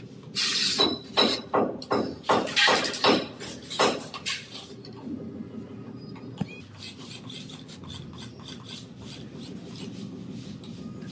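Rhythmic scraping or rasping strokes, about two a second, for the first few seconds, then a faint steady low hum.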